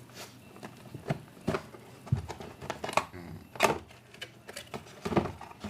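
A router's cardboard retail box being opened and its packaging handled: irregular clicks, taps and short rustles, with the sharpest ones about three and a half and five seconds in.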